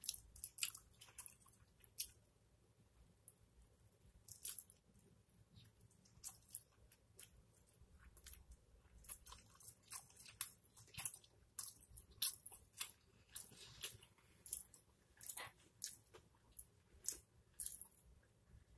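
Close-miked eating of a pepperoni pizza slice: bites and chewing heard as irregular wet mouth clicks and crackles. They are sparse at first and come thicker from about nine seconds in.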